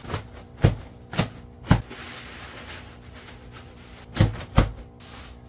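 Handling noise as cloth sleeves are pulled over an animatronic's foam-covered metal-pole arms: five short, dull knocks, three in the first two seconds and two more near the end.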